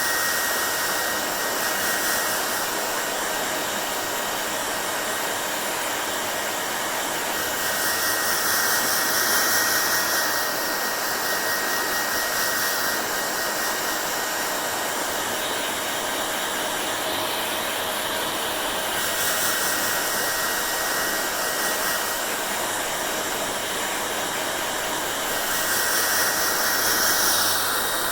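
Hair dryer blowing steadily with a faint high whine in its rush of air. The sound swells slightly a few times.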